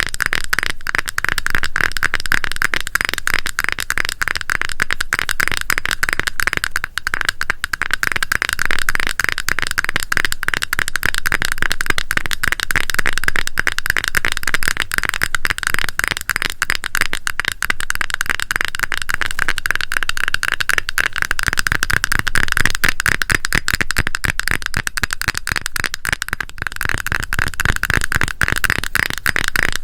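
Rapid tapping and scratching on a cream container, a dense, unbroken stream of small clicks.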